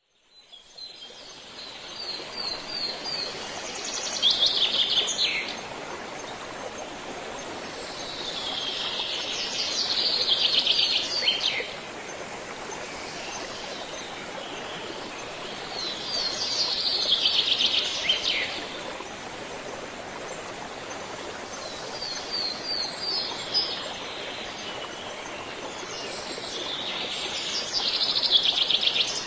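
A songbird sings the same short song about five times, every six seconds or so: a run of quick high notes that speeds into a trill and drops in pitch at the end. Under it runs the steady rush of a mountain river, fading in over the first second.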